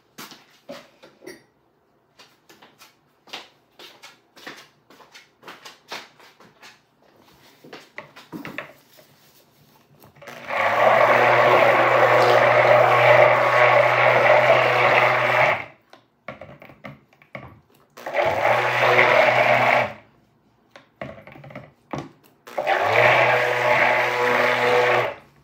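Stick blender running in three bursts in a bowl of soap batter, the first about five seconds long and the next two shorter, blending the batter before pouring. Before the first burst, light clicks and taps.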